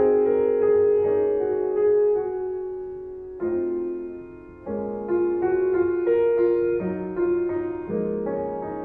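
Background piano music: slow, gentle solo piano, chords and melody notes struck and left to ring and fade.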